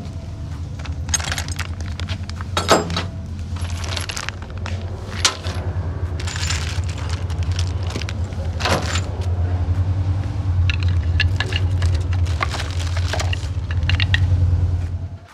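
Plastic packaging and bubble wrap crinkling, with small metal parts and bagged bolts clinking as they are handled. A steady low hum runs underneath and cuts off suddenly at the end.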